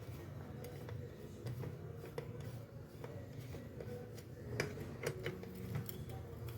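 Scattered light clicks and ticks of a small wrench and screws being fitted to a car starter motor, over a low steady hum.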